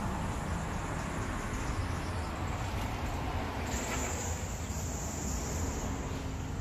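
Steady outdoor background noise: a low rumble, like wind on a phone microphone, under a high insect-like hiss that grows brighter a little over halfway through.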